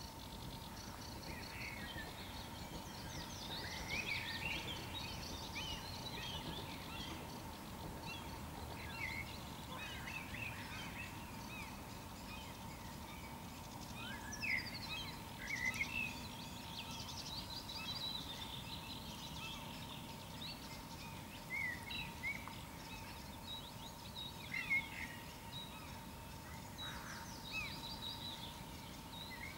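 Several songbirds singing in a mixed early-morning chorus: many overlapping short chirps, whistles and trills throughout, a few louder calls around the middle and near the end. Beneath them run a steady low rumble and a faint steady whine.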